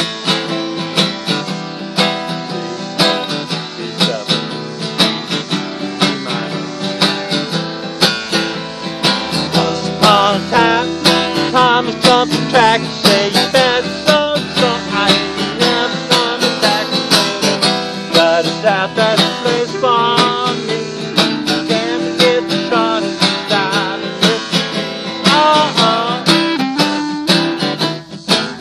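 Two acoustic guitars, one a twelve-string, strumming chords in a steady rhythm, with a clarinet playing a wavering melody over them from about ten seconds in.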